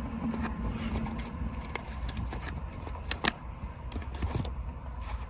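Stubby ratchets being handled: scattered light metal clicks and a couple of sharper knocks a little after three seconds, over a steady low rumble.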